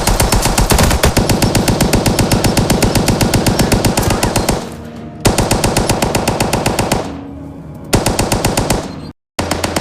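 German Maxim machine gun firing at a steady automatic rate in three bursts: a long burst of about four and a half seconds, then a shorter one of about two seconds, then a brief one that cuts off suddenly.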